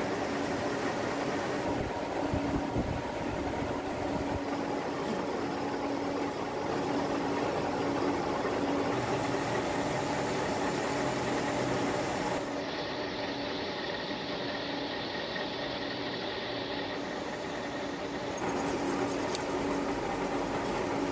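Metal lathe running while a twist drill bores into a metal workpiece: a steady motor and gear hum over a noise haze, changing abruptly several times.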